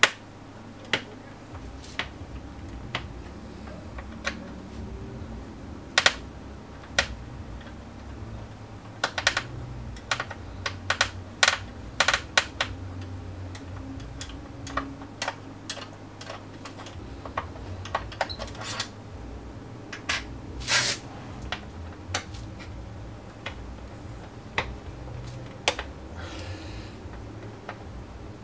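Irregular light clicks and taps of hands handling an Xbox One console's internals: wires, small connectors and the metal shield being touched and moved, a little busier in the middle and again later on.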